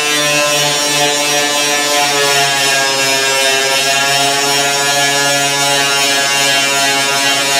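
A power tool running with a loud, steady droning whine, a pitched hum that wavers slightly in pitch and sounds like an airplane landing.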